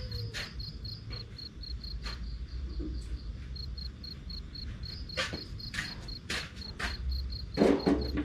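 A cricket chirping in a fast, even rhythm of about three chirps a second, over a low steady rumble. Several sharp knocks and clatters come in the second half, the loudest about three quarters of the way through.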